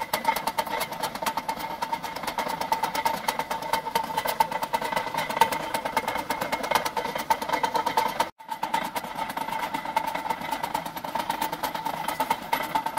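Belt-and-flywheel generator rig running steadily: a steady whine with a fast, even rattle, cutting out briefly a little past eight seconds in.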